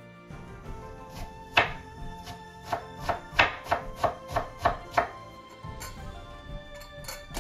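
Kitchen knife chopping red onion on a wooden cutting board: a quick run of about nine chops, roughly three a second, over background music.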